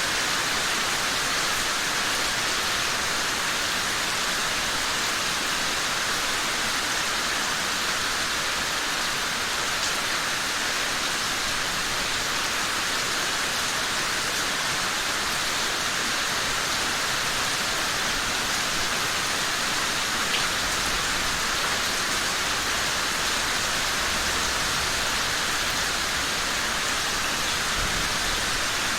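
Steady, even rain falling.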